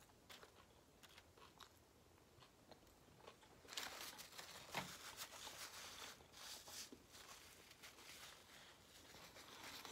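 Close-miked eating: faint chewing at first, then, about four seconds in, a few seconds of louder crunching bites into fried food, with one sharp crunch near the middle, settling back to quieter chewing.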